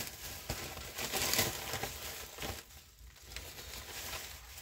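Plastic packaging crinkling and rustling as it is handled, loudest about a second in, with a couple of light knocks.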